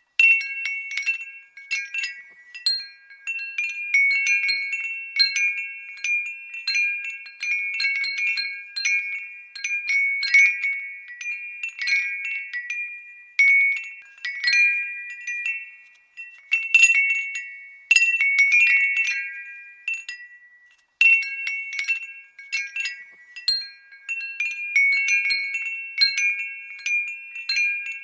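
Glass windbell ringing as it is stirred: irregular clusters of clear, high tinkling strikes at several pitches that overlap and fade away, with brief lulls about 16 and 21 seconds in.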